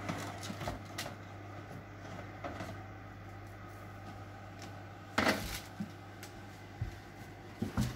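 A metal baking tray of cookies being slid out of an oven and carried off, with light clicks and scrapes and one loud clatter about five seconds in, over a steady low hum.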